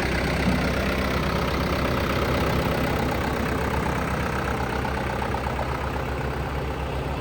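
Komatsu 140 4x4 backhoe's diesel engine idling steadily.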